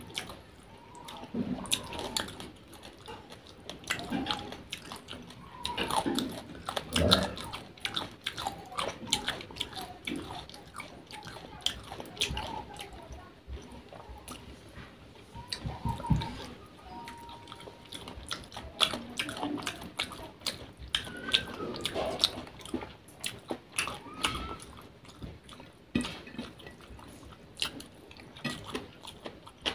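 Close-up chewing and wet lip smacking of a person eating rice and fish curry by hand, with many short irregular wet clicks.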